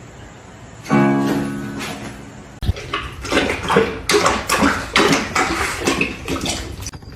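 Acoustic guitar music: a chord rings out about a second in, followed by busier, quicker playing.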